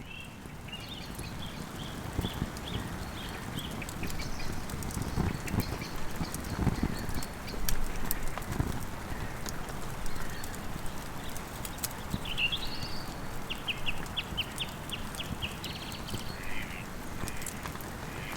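Wild birds singing: a string of short high notes, then about two-thirds of the way through a quick rising-and-falling call followed by a rapid trill of about eight notes, over a steady outdoor hiss with a few dull low knocks.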